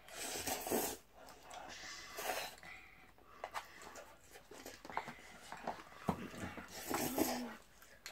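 Breathy mouth and nose noises from a child eating very spicy Buldak fire-chicken noodles, coming in several short gusts with small clicks between.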